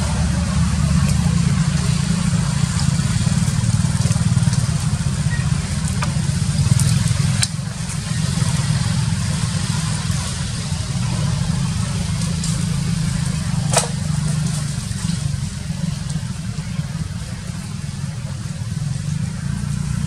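A steady low rumble, with two sharp clicks about seven and fourteen seconds in.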